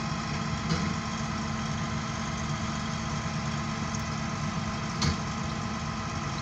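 An engine idling steadily, with a short click about five seconds in.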